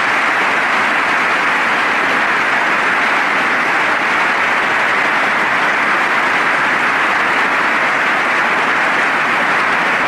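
A large audience applauding: many people clapping together in steady, sustained applause.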